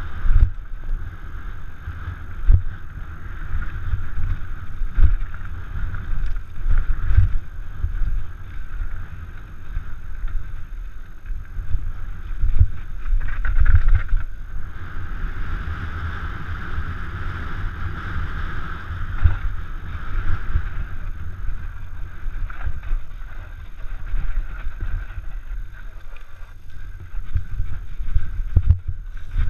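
Downhill mountain bike descending a rough dirt singletrack, heard from a helmet-mounted action camera: constant wind rumble on the microphone with tyre rumble and frequent sharp knocks and rattles from the bike over bumps and drops. A steady high whirring note runs underneath, stronger in the middle.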